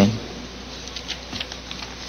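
A pause in a speech: faint room tone with a steady low hum and hiss.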